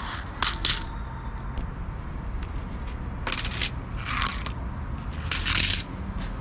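Several short crunching, rattling bursts of dry cat kibble: a cat chewing kibble from a plate, and a plastic bowl of kibble set down on brick paving about four seconds in.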